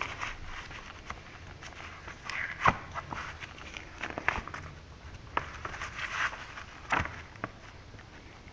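A paper user manual being handled and opened, pages leafed through: scattered soft rustles with a few sharp taps and clicks, the sharpest a little under 3 seconds in and again about 7 seconds in.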